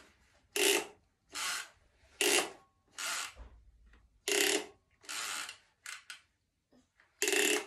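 Toy hedge trimmer's pull-start cord being pulled again and again, about eight short noisy strokes, roughly one a second.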